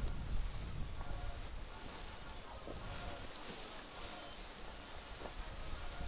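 Crickets chirping in a steady high trill, with a low rumble underneath.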